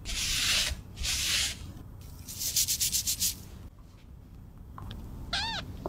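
Cotton pad rubbing against a kitten's fur in two long wiping strokes, then a quick run of about eight short rubbing strokes. Near the end a cat gives one short high mew that rises and falls.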